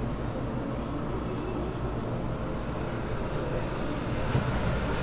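Steady low rumbling background noise of a street food stall, with no distinct event standing out.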